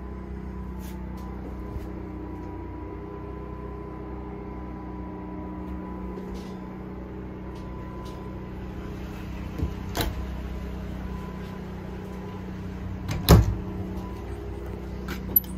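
Steady machine hum with a faint high whine, broken by a few sharp clicks and knocks, the loudest about thirteen seconds in.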